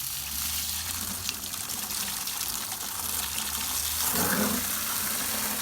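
Garden hose spraying a steady stream of water into a microwave to put out a fire burning inside it.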